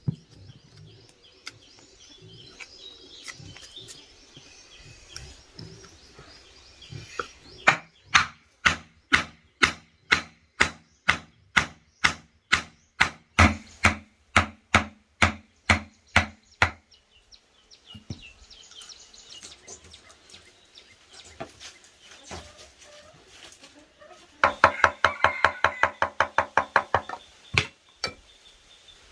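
A hand tool striking wood in a steady run of blows, about two to three a second, then a quicker burst of strikes near the end. Birds chirp in the pauses.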